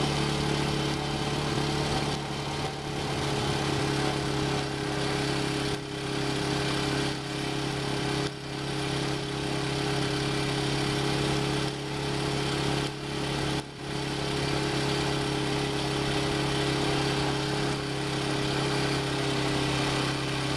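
Small engine running steadily at one even pitch on the vehicle that a sled-dog team is pulling, with a few brief dips in level.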